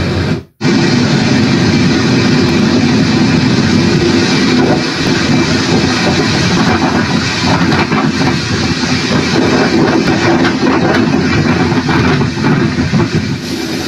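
Steady, dense noise of storm wind and surf, heard through a TV speaker and heaviest in the low range, with a brief dropout about half a second in.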